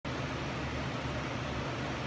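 Steady background hum and hiss, like a fan or room noise, with no distinct events.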